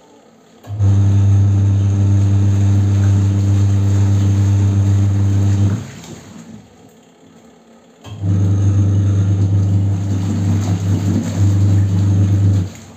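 Twin-tub washing machine's wash motor running with a steady, loud hum, in two spells of about five seconds and four and a half seconds with a two-second pause between, typical of the agitator stopping and reversing during the wash.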